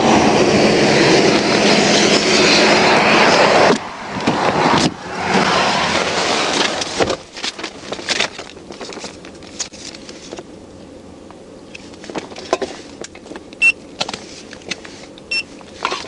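A vehicle passing close by with wind rushing on a body-worn microphone, loud and steady, cutting off suddenly about four seconds in. More rushing follows until a thump about seven seconds in, after which it is much quieter, with scattered light clicks.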